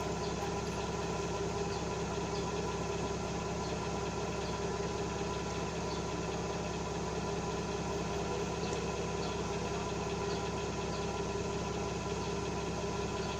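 Steady machine hum made of several constant tones, with no change in level, and a few faint light ticks over it.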